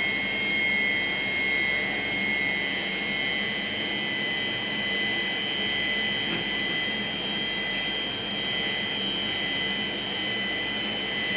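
CNC machine running steadily: an even mechanical hiss with a constant high whine.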